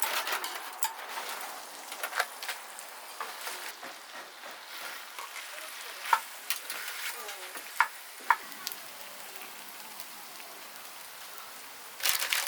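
Food frying in a pan, a steady sizzle with a few sharp clicks in the middle. The sizzle turns louder and more crackly near the end.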